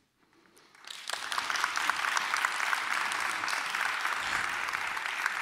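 Audience applauding, starting about a second in after a brief hush and going on at an even level.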